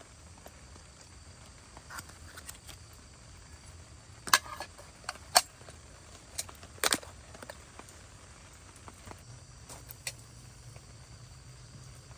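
A few sharp, separate snaps and clicks over a faint low hum, the loudest clustered about four to seven seconds in, with one more near the end.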